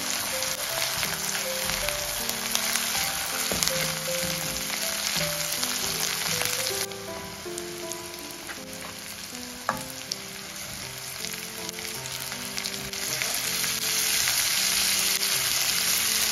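Onions and spices frying in hot oil in a stainless steel kadai, sizzling steadily under a wooden spoon's stirring, with a few clicks of the spoon against the pan. The sizzle dips about halfway through and grows again near the end as marinated chicken pieces go into the oil.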